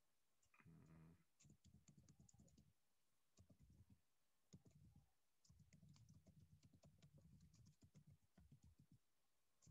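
Faint typing on a computer keyboard: runs of quick keystrokes with short pauses between them.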